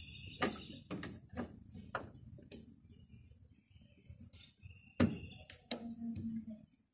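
Light clicks and taps from a gas hood strut's lower end being aligned and turned onto its mounting stud, several in the first two and a half seconds and a sharper knock about five seconds in.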